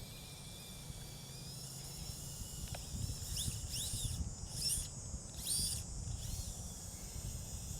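Small RC rock crawler's electric motor and drivetrain running faintly as it climbs a rock, swelling in the middle, with a few short high chirps around the middle.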